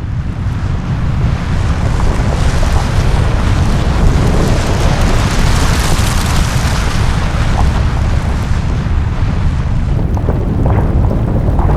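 Continuous deep rumbling roar with a hiss over it from Mount Merapi's pyroclastic flow pouring down the volcano's slope, building over the first couple of seconds and then holding steady.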